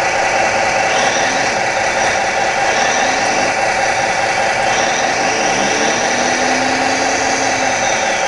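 1:16 scale radio-controlled hydraulic excavator running steadily, its sound module playing a diesel engine over the whine of its hydraulic pump as the clam bucket works. A tone glides up and then down about six seconds in.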